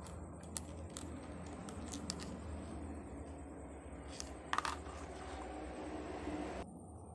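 Light clicks and taps of a smartphone's circuit board and small plastic parts being handled, lifted out of the phone's frame and set down on a table, the loudest cluster of clicks about four and a half seconds in. A steady low background hum cuts off abruptly shortly before the end.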